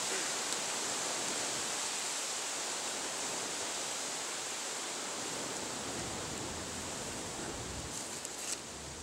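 Steady rushing background noise, even and unbroken, with a few brief rustles near the end.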